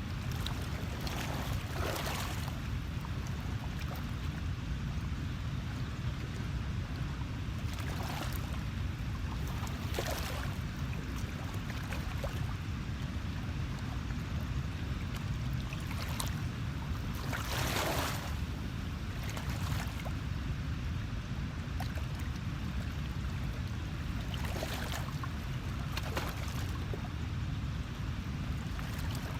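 Waterside ambience of wind and water: a steady low rumble, with short splashing rushes of water every few seconds.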